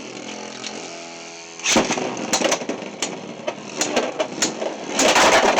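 Beyblade X tops spinning in a stadium: a steady whirring hum that sinks slowly in pitch, then from about a second and a half in they clash with several sharp knocks, turning into a rapid rattling clatter near the end.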